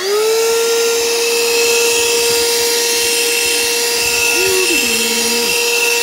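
Ryobi cordless handheld vacuum switched on: its motor spins up in a quick rising whine and settles into a steady high whine with a hiss of rushing air as it vacuums a doormat.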